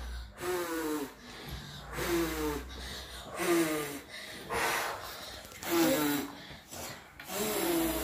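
Children blowing hard at plastic cups in repeated short puffs of breath, about six in all and roughly a second apart, several with a short voiced grunt in them.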